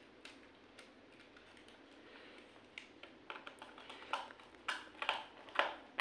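Small clicks and taps from a screwdriver and wire being worked into a relay socket's screw terminal. They are faint and sparse at first, then come quicker and sharper about halfway through.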